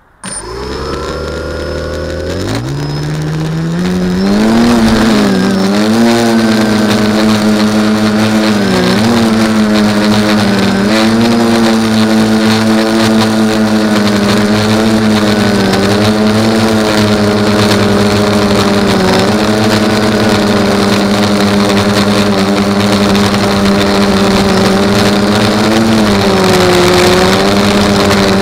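Electric motors and carbon-filled propellers of an FPV drone spinning up sharply and lifting off, rising in pitch over the first few seconds. They then settle into a steady, loud buzzing whine that dips and rises with throttle changes, heard from the camera mounted on the drone.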